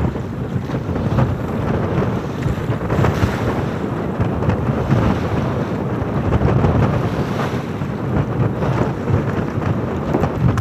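Strong wind buffeting the microphone, with waves washing against the boat.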